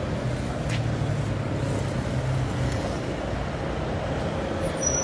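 Street traffic with city buses and cars running past: a steady engine hum and road noise, with a brief high squeal near the end.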